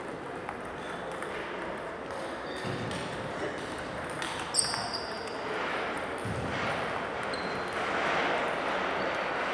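Table tennis balls clicking on rackets and table during a rally, over the steady murmur of a busy hall. A sharp ringing ping about halfway through is the loudest sound, with a couple of dull thumps around it.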